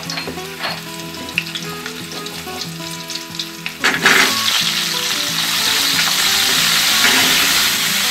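Hot oil crackling quietly in a steel kadhai, with a few light clicks. About four seconds in, pumpkin cubes tipped into the oil set off a loud, steady sizzle.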